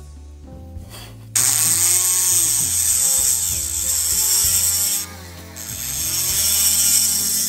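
Handheld rotary tool spinning a small abrasive bit against a diecast metal toy car body: a loud, high grinding hiss that starts suddenly about a second and a half in, breaks off briefly about five seconds in, then resumes.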